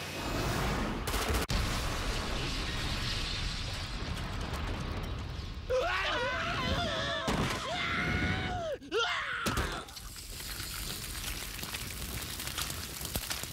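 Cartoon missile strike: an explosion and the steady noise of burning. About six seconds in, a man screams in agony for about four seconds, a wavering, breaking cry, and then the fire noise goes on.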